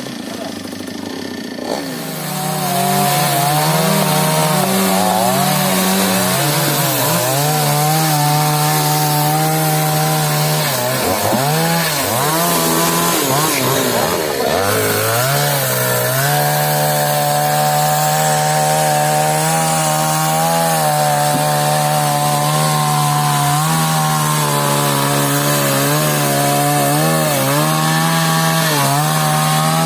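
Stihl chainsaw cutting through a mahogany trunk: the engine revs up about two seconds in and runs at high revs under load. Its pitch sags and recovers several times midway as the chain bites, then holds steady.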